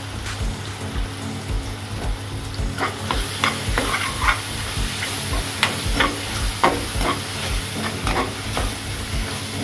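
Metal ladle stirring and scraping chopped ridge gourd and onions frying in a metal kadai, the vegetables sizzling. From about three seconds in, the ladle scrapes and clinks against the pan in quick, irregular strokes over a steady sizzle.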